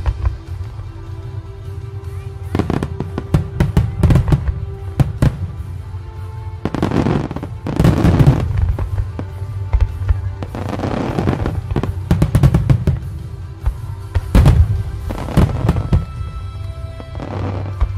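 Fireworks display: rapid shell bursts, bangs and crackling in several heavy barrages, over steady background music.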